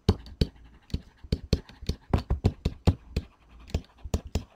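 Stylus writing on a tablet screen: a quick, irregular run of short taps and scratches as words are handwritten.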